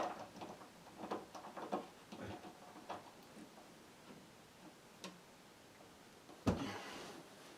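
Faint, scattered clicks and knocks of hands handling a plug and cords, mostly in the first three seconds, with a single louder thump near the end.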